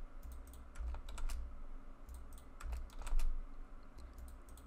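Computer keyboard keys and mouse buttons clicking in quick clusters of a few clicks each, as Ctrl+R loop cuts are placed and confirmed with left and right clicks.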